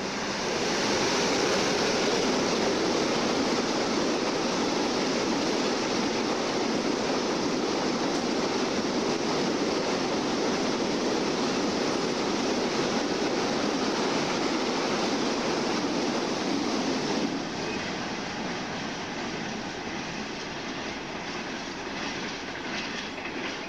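An electric locomotive hauling a long goods train passes close by, and its steel wheels on the rails make a loud, steady rumble. About 17 seconds in the sound drops off as the wagons move away.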